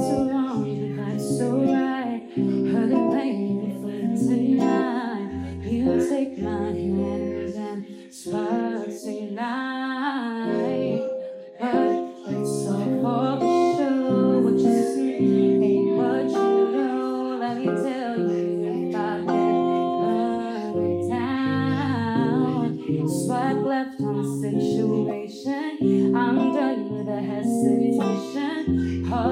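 Live song performance: guitar and band accompaniment with a woman singing.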